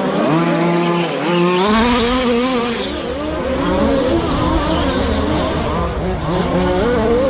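Several radio-controlled short course race trucks running around the track together, their motors whining in overlapping pitches that rise and fall repeatedly as they accelerate and slow for the corners.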